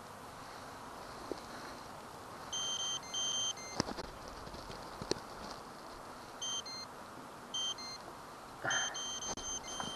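Electronic beeps: a pair of half-second beeps about three seconds in, two shorter single beeps about a second apart a few seconds later, and a longer beep near the end. A couple of sharp knocks fall between them, over a steady faint hiss.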